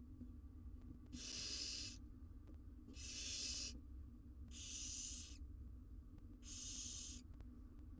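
Barn owl nestlings giving rasping hiss calls, four in a row about every one and a half to two seconds, each lasting under a second: the 'snoring' begging call that barn owl chicks make for food.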